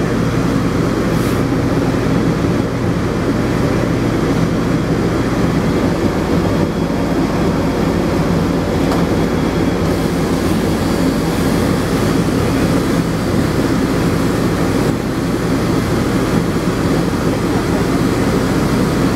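Electric pet grooming clippers running with a steady low motor hum.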